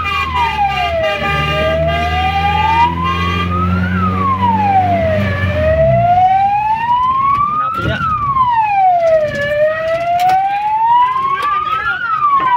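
Fire truck siren on a slow wail, heard from inside the cab. Its pitch climbs over about three seconds and drops back in about one, repeating roughly every four seconds. A steady low hum under it stops about six seconds in, and there is a single knock about eight seconds in.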